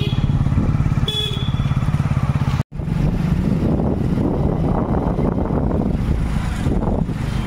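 Small two-wheeler engine running steadily while riding, with road and wind noise. The sound drops out for an instant about two and a half seconds in.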